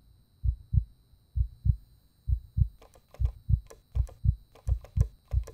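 Heartbeat sound effect: paired low thumps, lub-dub, about once a second. From about halfway through, faint sharp clicks are scattered over it.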